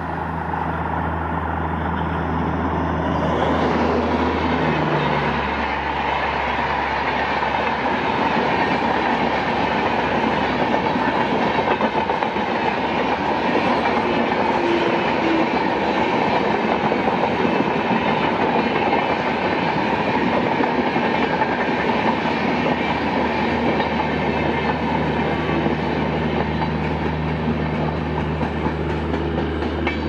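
Indian electric locomotive with a low steady hum for the first few seconds, then its passenger coaches rushing past close by at speed: a loud, even rumble and rush of wheels on rail that holds to near the end.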